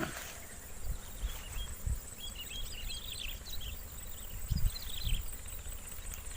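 Forest ambience: a steady high-pitched insect drone with clusters of quick, high chirping calls through the middle, and a few low thumps, the loudest about four and a half seconds in.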